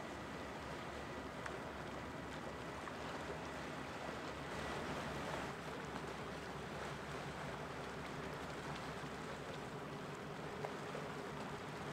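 Great Lakes freighter passing close: a steady low engine rumble under an even wash of water, swelling a little about five seconds in.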